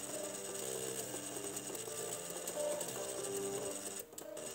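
Floppy drives' head stepper motors buzzing out a melody, several held notes sounding at once as the drives play together, with a brief drop-out near the end.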